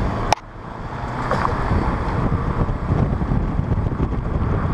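Road and wind noise inside a moving car: a steady low rumble. A sharp click comes about a third of a second in, after which the noise drops and builds back up over the next second.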